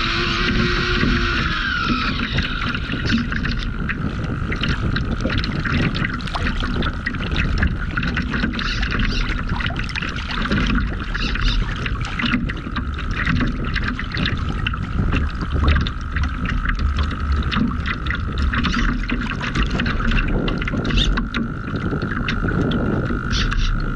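Water rushing and splashing past the hull of a radio-controlled Laser model yacht sailing through choppy water, with irregular wave slaps and wind buffeting the deck-mounted camera's microphone. A thin steady whine runs underneath.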